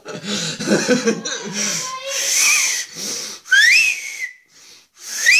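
Parrot screaming in fright: shrill, whistle-like shrieks that sweep up in pitch, twice in the second half, after a jumbled stretch of noise.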